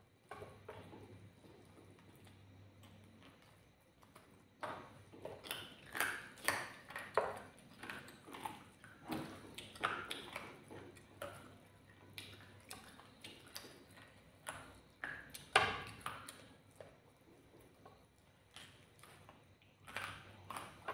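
Close-up eating sounds: wet chewing and mouth smacks mixed with fingers pulling apart curried chicken, a run of irregular sharp clicks and smacks that grows busy about four seconds in.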